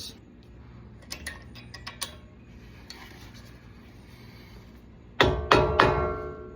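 Faint clicks of small metal parts being handled, then, about five seconds in, three sharp hammer taps a third of a second apart, each ringing briefly. The hammer is driving a brake caliper's pad-retaining pin into place, which is going in stiffly.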